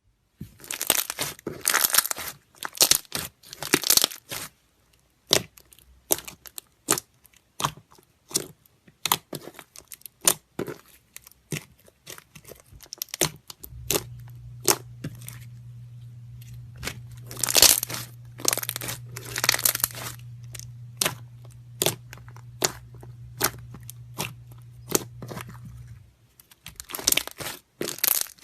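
Boba slime being squeezed and poked by hand, giving rapid crackling clicks and pops with longer crunchy bursts. A steady low hum runs under it from about halfway through until near the end.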